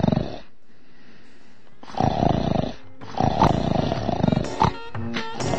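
Snoring: one snore tails off just after the start, then after a pause of about a second and a half come two more long snores. Music comes in near the end.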